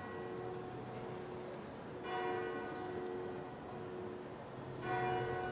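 Church bell tolling slowly, struck twice about three seconds apart: about two seconds in and near the end. Each stroke rings on, so the hum of one stroke overlaps the next.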